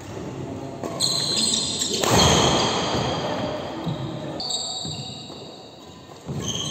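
Badminton doubles rally in a hall: shoes squeaking and feet thudding on the court floor, with a loud burst of noise about two seconds in that fades away over about a second.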